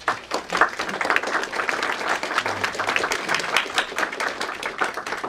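Audience applauding: many people clapping, starting at once and beginning to die away near the end.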